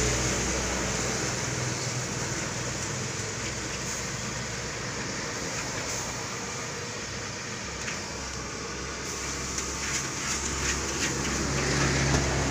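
Wok of chicken fried rice cooking over a gas stove burner: steady burner noise with sizzling, and a few sharp clicks of the metal spatula against the wok in the last few seconds.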